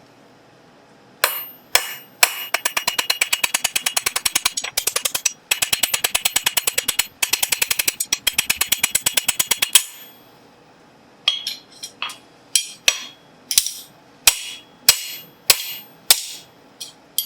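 Hand hammer striking steel on an anvil, each blow ringing: a fast run of light blows, about six a second with two short breaks, then after a pause a string of slower single blows.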